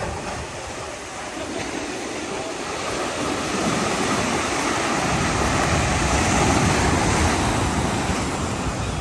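Sea surf washing onto the beach, with wind on the microphone, swelling louder about halfway through.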